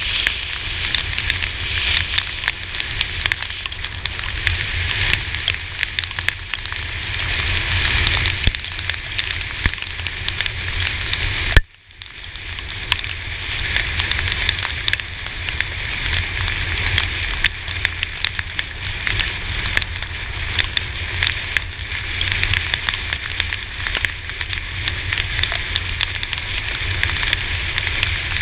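Rain striking a GoPro Hero4's housing in a dense crackle of small drop impacts, over a hiss and a low rumble from the moving Yamaha T-Max 530 scooter on the wet road. A little under twelve seconds in, a sharp click is followed by the sound briefly cutting out.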